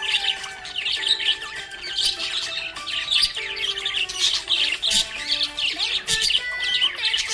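Budgerigar chirping and chattering in a dense, unbroken run of quick high chirps, over background music with held notes.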